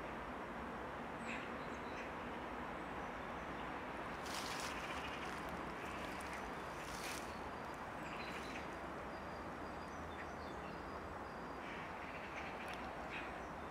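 Outdoor ambience: a steady hum of distant city traffic with a few short bird calls over it, two louder calls about a third and about halfway through.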